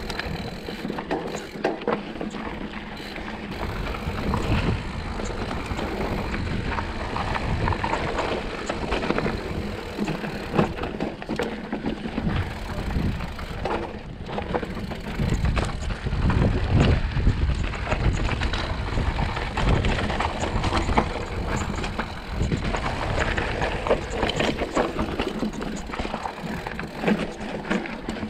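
Mountain bike rolling over rocky dirt singletrack: continuous tyre noise and bike rattle, with frequent knocks and clatters as the wheels hit rocks.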